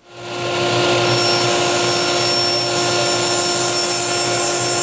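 Table saw running steadily while ripping a board down its centre line, a steady machine hum with a constant whine; it fades in over about the first second.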